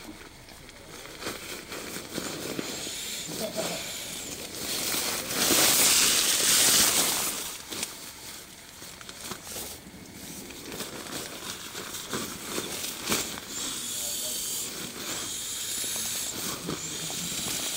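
Air rushing through an inflatable sleeping pad's valve in one long hiss starting about five seconds in, with rustling of the pad and tent fabric being handled around it.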